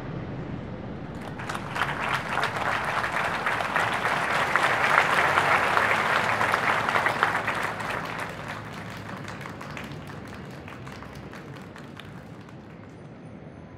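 Crowd applauding. The clapping breaks out about a second in, swells to its loudest in the middle, then thins and fades away over the last few seconds.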